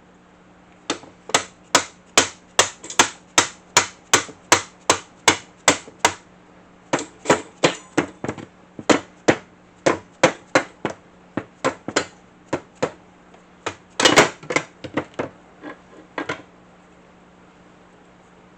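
Dead-blow hammer tapping repeatedly on a stuck table saw part to knock it apart, about two to three sharp taps a second. The taps break off briefly about six seconds in, come in a quick flurry about fourteen seconds in, and stop about sixteen seconds in.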